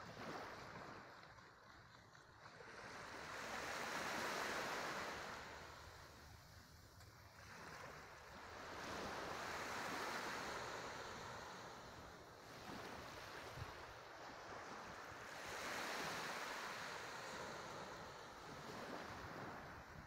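Small waves washing up onto a sandy shore, the hiss swelling and fading three times, about every six seconds.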